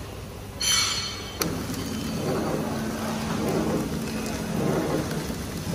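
A 250X three-servo horizontal flow-wrap packing machine is started: a brief high-pitched buzz comes about half a second in, a sharp click follows, and then the machine runs with a steady low hum and a busy mechanical clatter as its conveyor feeds hinges in.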